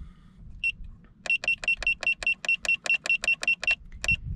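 Solar tracker controller's buzzer giving short high key-press beeps as its setting button is pressed: one beep, then a quick steady run of about a dozen beeps, about five a second, and two more near the end. The button is stepping up the wind-return time setting.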